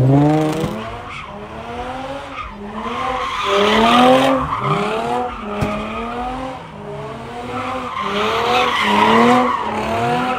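A car engine revving hard, its pitch climbing and dropping over and over, while the tyres spin and squeal against the pavement; the squeal swells about four seconds in and again near the end.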